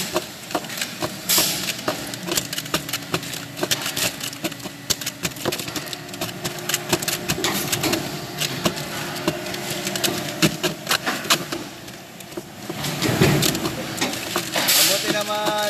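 Factory floor work noise: machinery running with a steady hum under many quick clicks and clatters of parts being handled, with a louder burst of noise about 13 seconds in.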